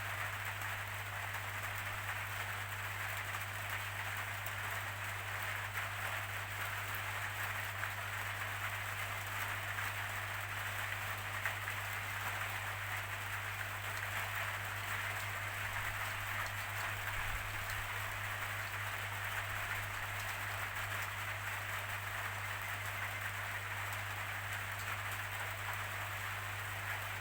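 Steady rainfall: an even hiss with faint drop ticks and no change in intensity, over a constant low hum.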